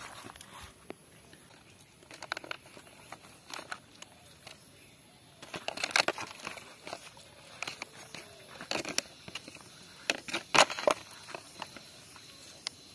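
A large knife chopping through roast chicken onto banana leaves, with hands tearing the meat apart: irregular knocks and leaf crackling, loudest about halfway through and again near the end.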